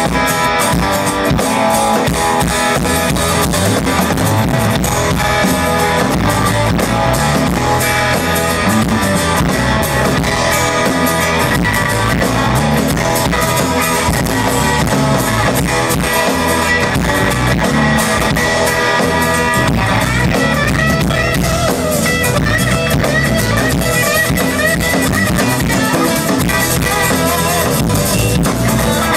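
Live rock band playing an instrumental passage on guitar and drum kit during a sound check, with no vocals.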